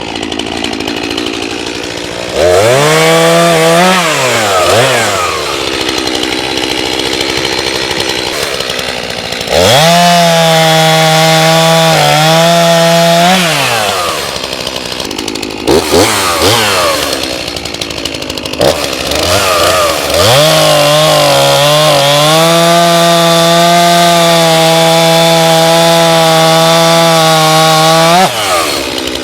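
Two-stroke chainsaw cutting into a rotten chestnut tree. It revs to full throttle three times, the last cut the longest at about eight seconds, with a brief blip in between, and drops back to a rough idle between cuts.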